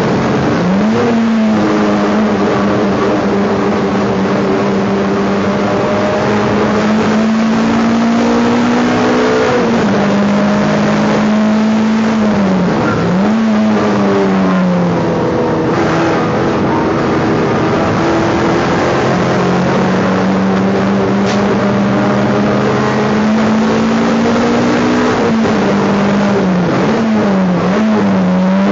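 Race car engine heard from inside the stripped, roll-caged cabin, running hard through a lap. Its note climbs slowly on long pulls, and several times it drops sharply and quickly climbs back as the car slows and picks up again.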